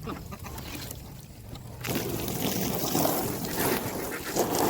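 Water splashing and running as the water bowls are rinsed out, starting loud about two seconds in.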